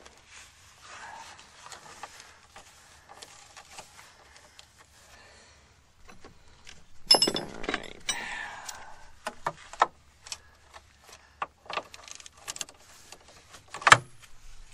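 Steel hand tools clinking and clicking as a socket is fitted onto an extension and ratchet, with scattered sharp clicks. A louder scraping clatter comes about seven seconds in, and a sharp clank near the end.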